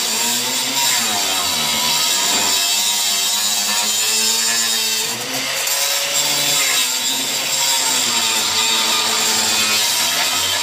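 Angle grinder with a cut-off wheel cutting through a rusted suspension bolt whose bushing has seized on it. The grinder's whine wavers in pitch as the motor bogs under the cut and picks back up, easing off briefly about five seconds in.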